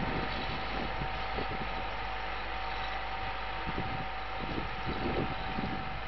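Belarus 820 tractor's four-cylinder diesel engine running steadily under load as it pulls a mounted plough through stubble.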